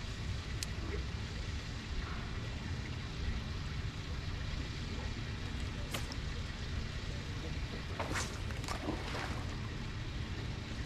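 Wind rumbling on the microphone over water lapping around a bass boat, with a couple of sharp clicks and a short burst of splashing about eight seconds in, from a hooked smallmouth bass thrashing at the surface.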